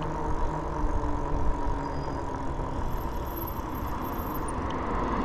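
Riding noise from a Rad Rover fat-tyre e-bike under way: steady wind rush on the microphone and the rumble of the 26 x 4 inch tyres on asphalt, with a faint steady whine from the 750 W rear hub motor.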